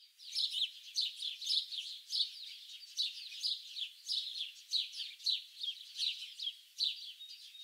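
Small birds chirping and twittering: a steady stream of short, high, downward-sliding chirps, several a second, with nothing lower in pitch beneath them.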